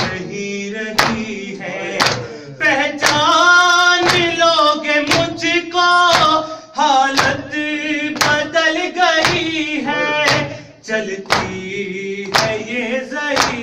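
Men singing a Urdu noha lament, a lead voice carrying the melody, over matam: hands striking chests in a steady beat about once a second.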